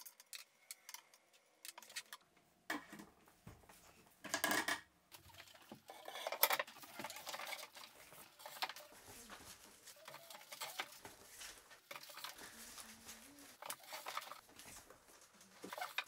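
Vinyl record albums in cardboard jackets being handled and set onto a wooden cabinet shelf: irregular rustling, sliding and light knocks, with a few louder scrapes.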